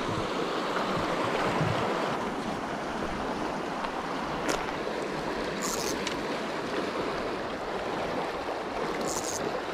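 Fast, shallow mountain river rushing over rocks, a steady noise. A single click comes about four and a half seconds in, and two brief high hisses come near the middle and near the end.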